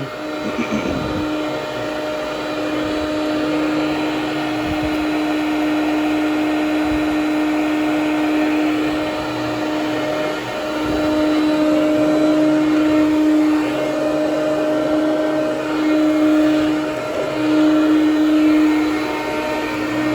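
Hoover Conquest Widetrack commercial upright vacuum, a direct-air machine with its fan close to the floor, running loudly over low-pile carpet tile with a steady pitched hum. Its loudness swells and eases several times, most in the second half.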